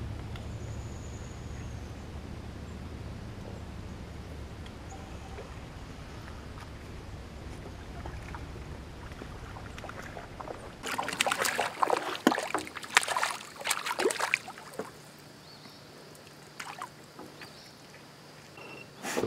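A steady low rumble, then from about eleven seconds a few seconds of sharp clicks and clatter as a video camera on a tripod is handled and adjusted, followed by a few scattered clicks.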